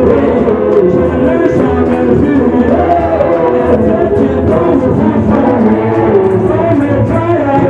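Live song: a man singing into a microphone through a PA over amplified band accompaniment with a steady bass and a regular beat.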